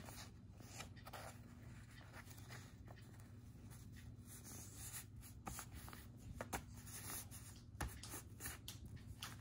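A sheet of paper being folded by hand, its creases pressed and smoothed flat: faint, irregular paper rustling and scraping with a few soft clicks, over a low steady hum.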